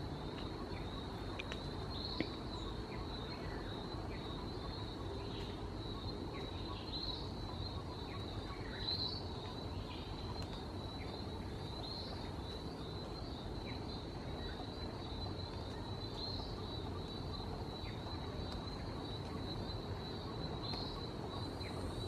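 Insects, likely crickets, chirring in a steady high trill throughout, with a few short bird chirps scattered through it, the loudest about nine seconds in.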